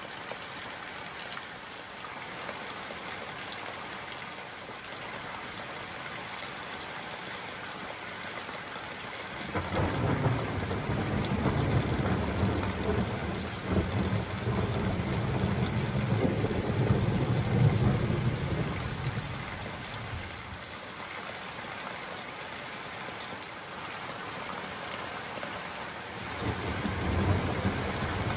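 Thunderstorm: steady rain hiss, with a long low rumble of thunder starting about ten seconds in and lasting about ten seconds. A second rumble of thunder builds near the end.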